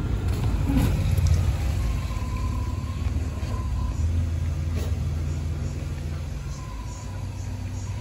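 Low steady rumble, loudest about a second in and easing toward the end.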